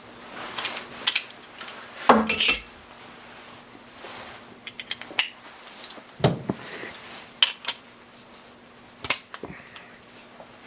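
Metal hand tools clinking and clanking as sockets and wrenches are handled and set down, a few separate knocks with a louder clatter about two seconds in.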